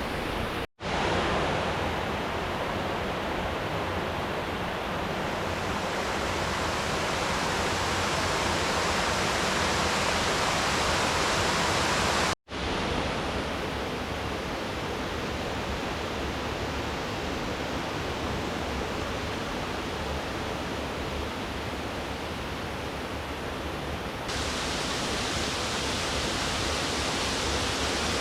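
Steady rush of river water tumbling over a waterfall, an even noise with no rhythm. It cuts out abruptly for a split second twice, about a second in and about halfway through.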